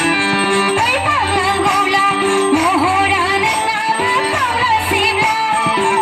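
Music playing for a stage dance: a sung melody over instrumental accompaniment with held notes, the voice coming in about a second in.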